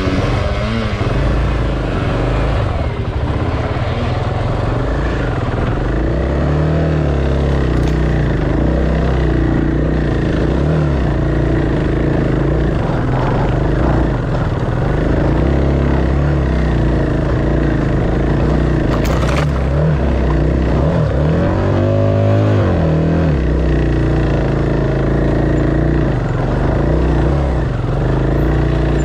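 Off-road motorcycle engine running, its revs rising and falling repeatedly as it is throttled on and off.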